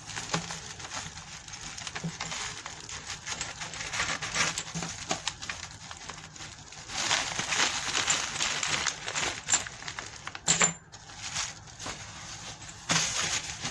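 Packaging crinkling and rustling while metal RC wheel rims are unwrapped and handled, with scattered small clicks and one sharper knock about ten and a half seconds in.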